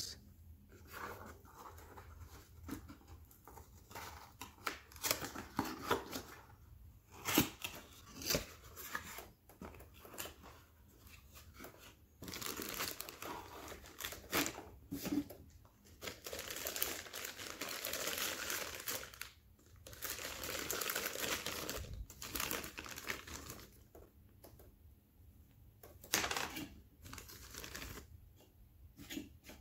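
A cardboard box being opened, then plastic bags crinkling and rustling as a stainless steel sink basket strainer and its parts are lifted out and handled. The sound comes in irregular bursts, with longer stretches of steady crinkling midway.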